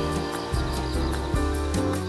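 Background music: a bass line changing notes under sustained chords, with a steady percussion beat.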